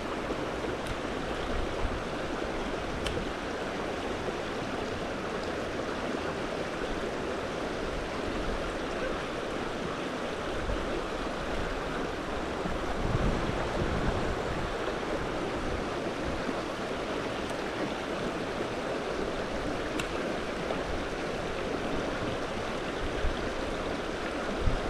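Mountain trout stream water rushing steadily.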